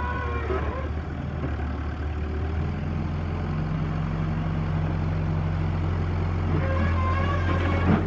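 New Holland LB75 backhoe loader's diesel engine running steadily as the machine moves on gravel, its note getting heavier about two and a half seconds in. A wavering whine sounds over the engine at the start and again near the end.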